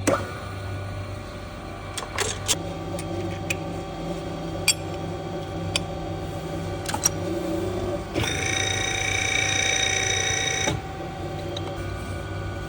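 Dongjin DRH120V hydraulic riveting machine running: a steady hum from its motor and pump with scattered sharp clicks. About eight seconds in, a louder, higher whine sets in for about two and a half seconds, then cuts off and the hum carries on.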